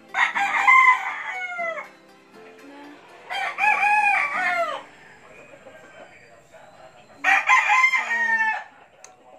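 A rooster crowing three times, each crow about a second and a half long and falling in pitch at the end, a few seconds apart.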